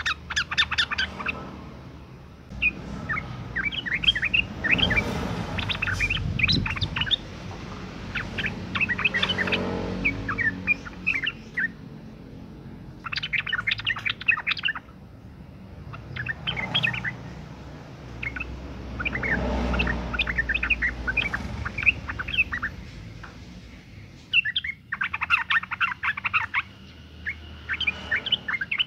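Yellow-vented bulbul (trucukan) female giving its calling chatter: bouts of quick, bubbly chirping notes, a few seconds each, repeated about every three seconds, with a low rumble under some bouts.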